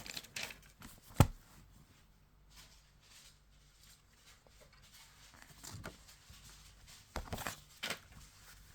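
Leather wallet and its packaging being handled: scattered rustles and soft taps, with one sharp click about a second in and more rustling near the end.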